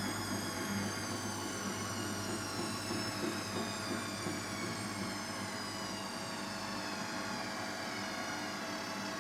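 Hotpoint Extra WMXTF742K washing machine running, its motor whine slowly falling in pitch as the drum's spin slows down.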